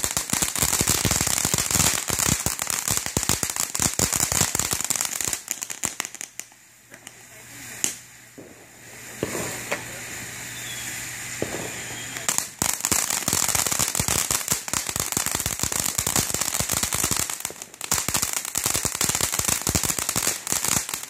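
Fireworks crackling and popping in rapid, dense strings of small bangs, easing off for a while partway through, then starting up again, with one more short break near the end.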